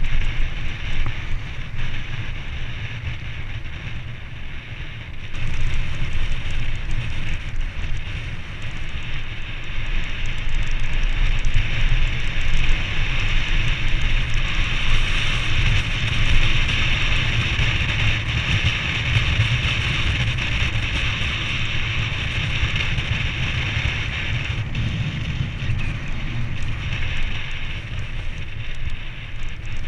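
Wind rumbling on the microphone of a bike-mounted action camera, with mountain-bike tyres rolling on a concrete road, getting louder about five seconds in.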